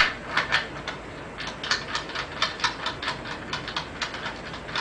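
Metal adapter being fitted into the socket of a die-cast aluminium four-way pipe clamp and locked in: a pair of sharp knocks at the start, then an uneven run of small clicks and taps, about three to five a second.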